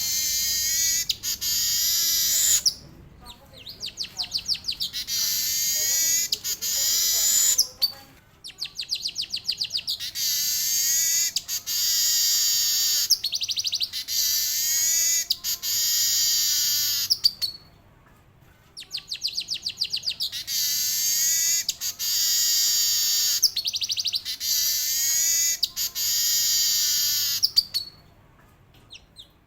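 Male manyar (weaver bird) singing in long bouts: a rapid run of repeated rising notes that runs into a long, dry, high buzzing trill, repeated four times with short pauses between.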